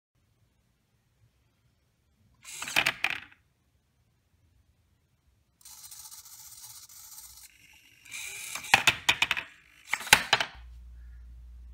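Servo-driven kicking machine clattering: hobby servos whir and plastic parts knock in short bursts. There is one burst about two and a half seconds in, then a louder run of clacks near the end as the boot swings and knocks the cut-out head backward. A steady low hum follows.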